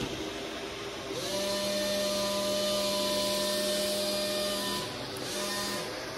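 Small electric motors and fans of a Taiyo/Tyco Typhoon RC hovercraft whirring with a steady whine and rush of air. The whine rises in pitch about a second in as the motors speed up, holds steady, then dips and picks up again twice near the end.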